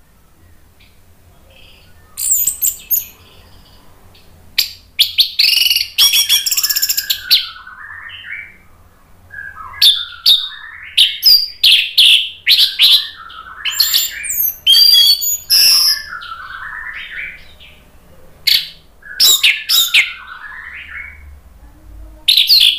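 Orange-headed thrush singing in repeated loud bursts of varied phrases: sweeping whistles mixed with quick high chattering notes and lower warbles, broken by short pauses.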